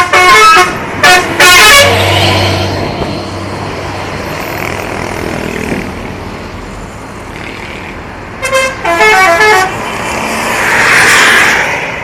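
Multi-tone 'telolet' musical horns playing short stepping melodies: three quick bursts at the start and another run about eight and a half seconds in. Between and after them come the low engine hum and road noise of large vehicles passing.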